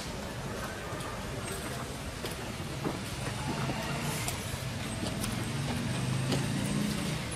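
A low, steady motor hum that grows louder in the second half, over an even outdoor hiss with a few faint clicks.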